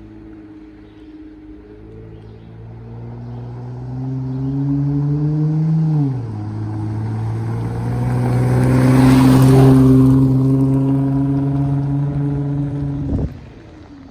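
A vehicle engine accelerating with rising pitch, dropping in pitch as it shifts up about six seconds in, then pulling steadily and passing close by with tyre noise, loudest a little past the middle. The sound cuts off suddenly near the end.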